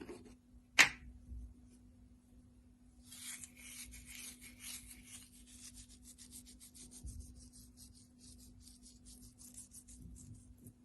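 Quick, even rasping strokes of a kitchen utensil, starting about three seconds in and fading toward the end, with one sharp click just under a second in.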